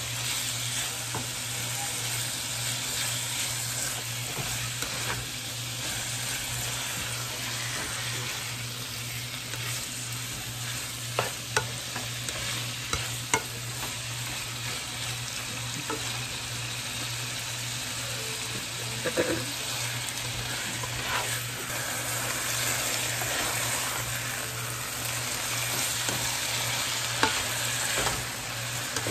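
Diced chicken pieces sizzling steadily in olive oil in a frying pan while being stirred and turned with a spatula, with a few sharp clicks of the spatula against the pan.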